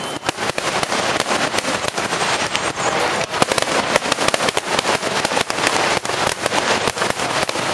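Fireworks going off in a dense, irregular string of sharp bangs and crackles that sound like gunshots.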